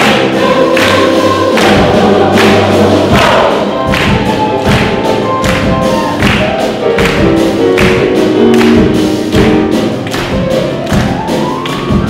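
Large mixed choir singing with a band of drum kit and grand piano, over a steady beat of about two strokes a second.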